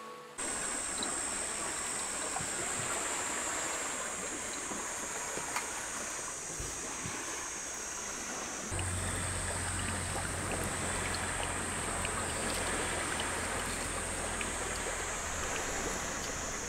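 Steady lakeside ambience: a soft wash of small waves on the shore, with a thin high-pitched drone throughout. A low hum comes in suddenly about halfway.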